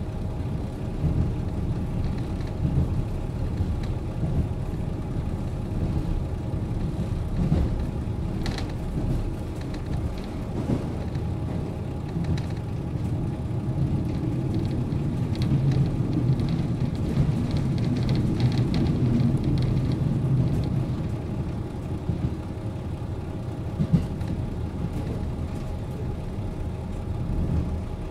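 KiHa 40 diesel railcar standing with its diesel engine idling, a steady low hum that swells a little through the middle. One sharp click sounds near the end.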